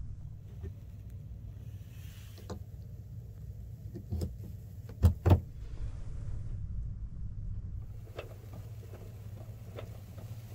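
Steady low hum inside a plastic sleeping capsule. Over it come scattered light clicks and a knock, then two sharp knocks about five seconds in, as hands handle the pod's fittings.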